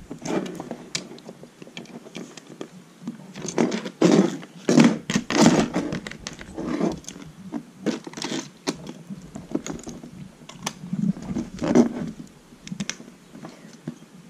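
Lego bricks clicking and rattling as they are pressed together and handled: an irregular run of small sharp clicks.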